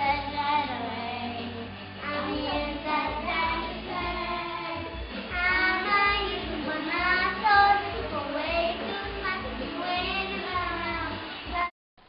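A young girl singing into a microphone along with a karaoke pop backing track; the music and singing cut off abruptly near the end.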